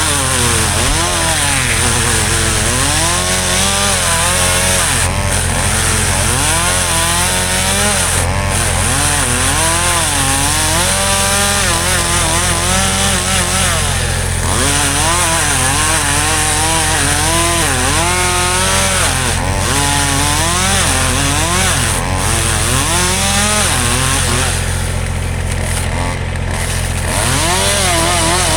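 Chainsaw running and cutting, its pitch rising and falling again and again as the throttle is worked, over a steady low engine hum.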